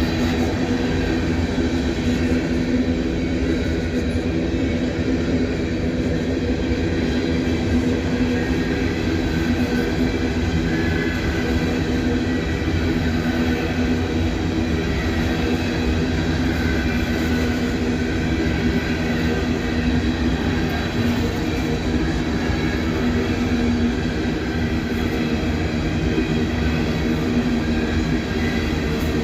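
Cars of an empty freight train rolling past: a continuous, even rumble of steel wheels on rail with a steady hum running through it.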